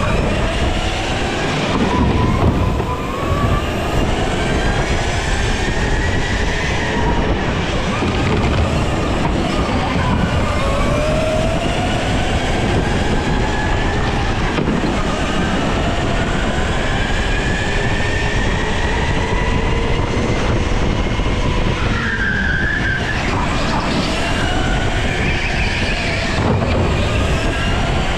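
A pack of racing go-karts running hard on an indoor track. Several motor whines rise and fall in pitch as the karts brake and accelerate through the corners.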